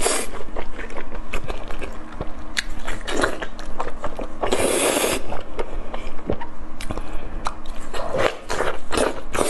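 Close-miked eating of saucy, chewy spicy food: wet smacking and chewing, with a loud slurp about four and a half seconds in as a sauce-coated strip is sucked into the mouth, and more slurping near the end.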